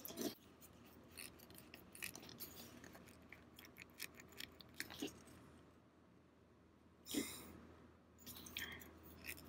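Faint small clicks and scrapes of a thin metal tool prying at the pivot end of a straight razor's wooden scales, with a louder scrape about seven seconds in.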